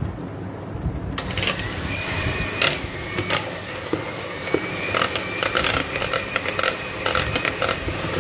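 Electric hand mixer running, its beaters whipping butter with a sweetened-milk mixture into buttercream. From about a second in, the beaters click and scrape against the plastic bowl.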